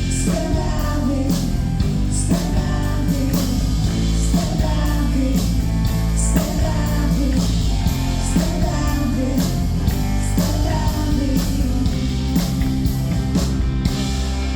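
Live band playing a rock-country song with a singer, over a steady drum beat and guitar.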